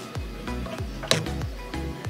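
Background music with a steady beat of low thumps about twice a second, and one sharp click about a second in.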